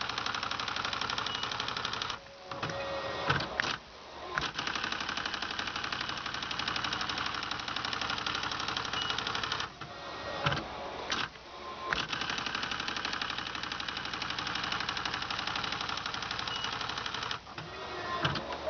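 Royal Beta 9000 electronic typewriter printing a typing test: runs of fast, even print-hammer strikes a few seconds long, with short pauses holding a few louder clunks. The print hammer has just been realigned with the selection motor, and the strikes are the check that it now prints properly.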